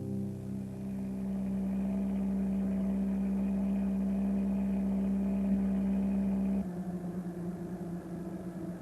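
Small van engine running steadily at an even note while driving. About six and a half seconds in, the sound suddenly drops in level.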